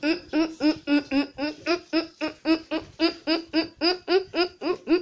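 A child's voice making a fast, even run of short laugh-like syllables, about four or five a second, each with a quick rise and fall in pitch.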